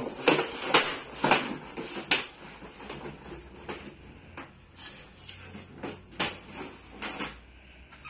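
Collapsible camp-stove pipe being folded and rolled up by hand: irregular clicks, taps and light metallic knocks from the thin pipe sheet, busiest in the first two seconds, then sparser and lighter.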